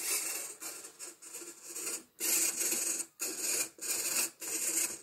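Small RC servo whirring in a run of short bursts, about half a second each with brief gaps, as it swings its linkage back and forth.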